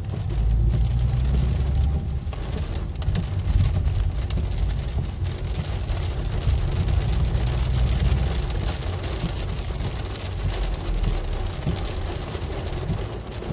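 Rain falling on a car's roof and windshield, heard from inside the moving car over the car's steady low rumble on the wet road.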